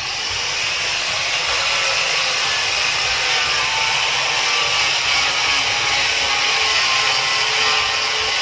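Electric angle grinder with a sanding disc running steadily, smoothing the wooden hull of a small boat.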